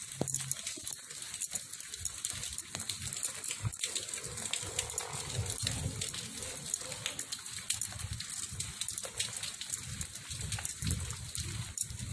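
Rain falling on a wet road, heard as a dense patter of fine ticks, with irregular low thumps of footsteps as someone walks.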